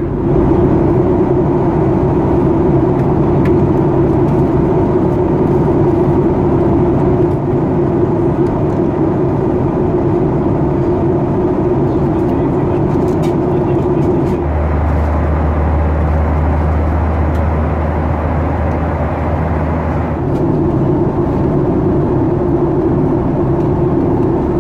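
Steady engine and airflow noise inside the cabin of a Boeing 737-800. In the middle it turns to a deeper hum for about six seconds, switching in and out abruptly.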